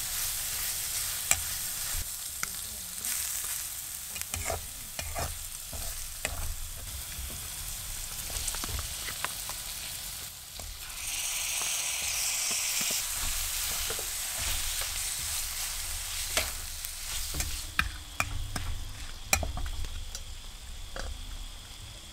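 Chopped aromatics and chilli sizzling in hot oil in a steel wok, with a metal spatula scraping and clicking against the pan as it stirs. About eleven seconds in the sizzle grows louder for a couple of seconds as pieces of frog meat are tipped into the wok, then the stirring and clicking go on.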